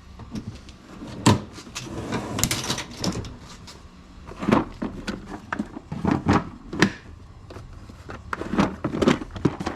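Irregular clicks, knocks and clatter of objects being handled, picked up and set down, with some rustling in between.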